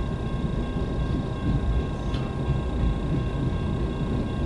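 CN freight train rolling past a grade crossing, a steady low rumble heard from inside a car, with faint steady high tones over it.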